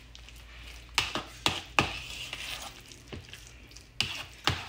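A metal utensil stirring thick mashed potatoes in a ceramic bowl, with several sharp clinks as it strikes the side of the bowl, a few in quick succession about a second in and two more near the end.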